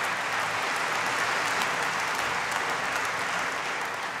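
A large audience applauding steadily, a dense patter of many hands clapping that tails off near the end.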